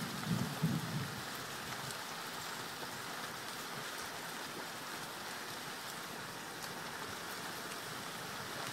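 Steady wet hiss of a slow-moving vehicle's tyres on a rain-soaked dirt road, with a few faint ticks of grit. A low engine rumble fades out in the first second.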